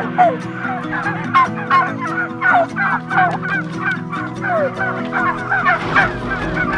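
A flock of white domestic turkeys calling, many short chirps and yelps overlapping several times a second without a break.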